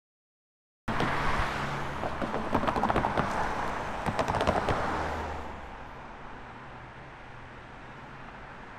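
A vehicle passing by: a rushing noise with scattered clicks that starts abruptly about a second in and fades after about five seconds to a quieter steady background.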